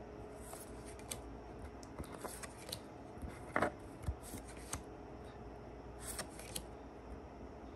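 Pokémon trading cards being handled and flipped one at a time, with light sliding of card on card and a few short clicks; the sharpest click comes about three and a half seconds in.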